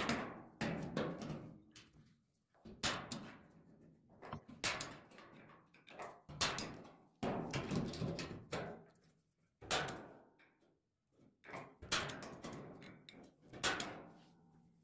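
Hand punch pliers punching plug-weld holes through the flange of a new steel quarter panel: sharp metallic clunks roughly a second apart, each ringing briefly in the sheet metal.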